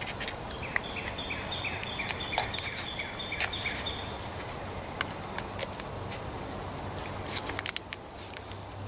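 MRE cheese spread pouch being kneaded by hand, its packaging crinkling in short clicks and crackles, more densely about seven seconds in. A bird chirps in a quick repeated series through the first few seconds.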